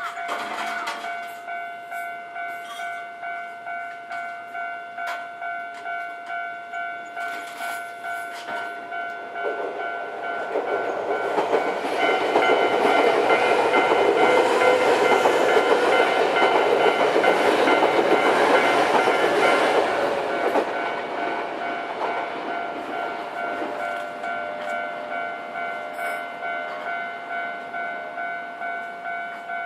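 Level-crossing warning bell on the Nankai Electric Railway ringing in a steady, evenly repeating pulse. An electric train passes over the crossing from about ten seconds in, loudest for the middle eight seconds, then fades while the bell keeps ringing.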